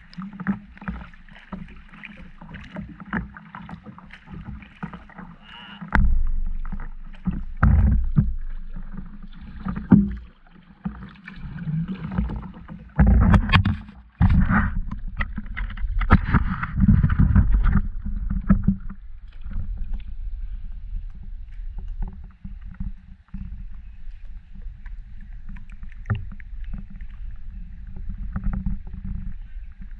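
Kayak paddling: paddle splashes and dripping water with short knocks on the plastic hull. Heavy thumps and rubbing through the middle stretch as the camera is handled against the hull, then softer water sounds and light knocks near the end.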